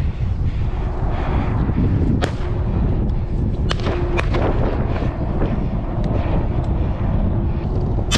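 Wind buffeting the microphone: a steady low rumble, with a few light sharp clicks.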